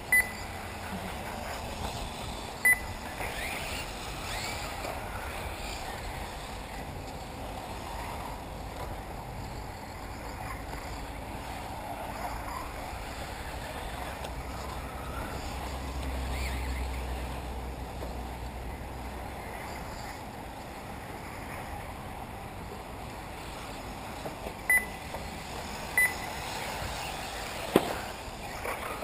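1/8-scale electric RC off-road buggies running around the track: a faint, steady whir of motors and tyres. A few short high beeps come near the start and again near the end, with a single sharp knock just before the end.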